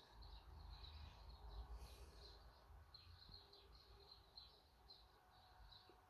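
Near silence: room tone with faint, quick high chirping repeating two or three times a second.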